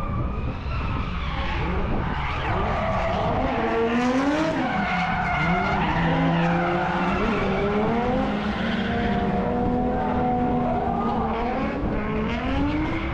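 Car engine revving up and down on track, over the noise of tyres skidding, as in drifting.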